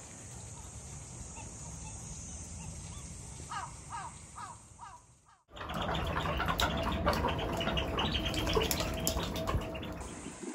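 Outdoor ambience with a quick run of four short falling chirps about three and a half seconds in; then, after a sudden break, a louder, busy stretch of many bird calls that eases off near the end.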